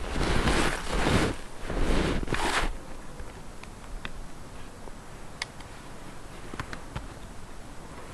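Footsteps in snow, about one step a second, the last one about two and a half seconds in. A few faint ticks follow.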